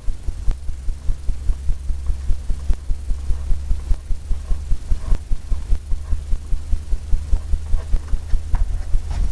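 Quick, even low thumps, about four a second, from rapid painting strokes against a stretched canvas on its easel, over a steady low hum.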